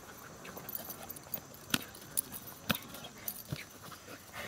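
Scuffling of a young German Shepherd playing rough with a person on grass, with three sharp taps about a second apart.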